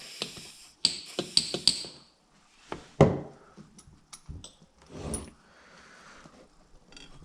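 WD-40 aerosol can spraying in short hisses, followed by scattered clicks and knocks of tools and metal engine parts being handled, with one loud knock about three seconds in.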